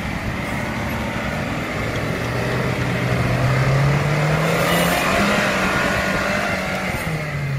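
Modified Suzuki Samurai's engine revving under load as the truck pushes through deep mud. Its pitch rises over a few seconds, drops briefly, then climbs again near the end, over the noise of spinning tyres throwing mud.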